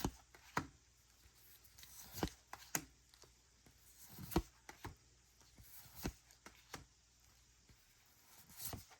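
Pokémon trading cards being handled: sharp card snaps and taps, about ten of them, sometimes in quick pairs, as cards are flicked and slid one behind another.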